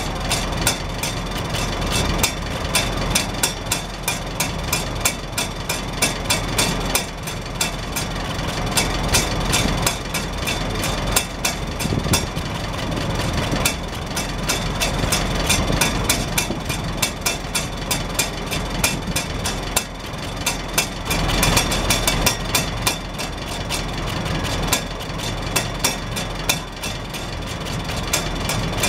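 Farmall Super H's four-cylinder engine idling steadily, with the hinged rain-cap flapper on the exhaust stack tapping rapidly and unevenly as the exhaust pulses lift it and let it fall.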